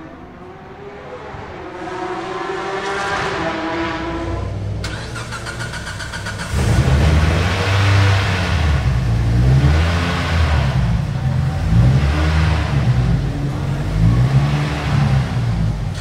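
Mitsubishi Lancer Evolution race car's turbocharged 4G63 four-cylinder running in the pits. It runs fairly quietly at first, its pitch rising slowly. From about six seconds in it is much louder and is revved repeatedly in short blips that rise and fall.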